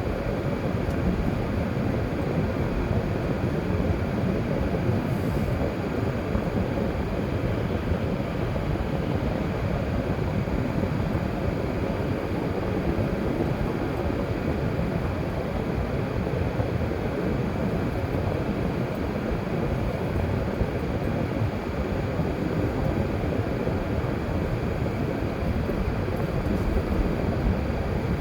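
Steady road noise of a car being driven: a low, even rumble of tyres and engine with no changes.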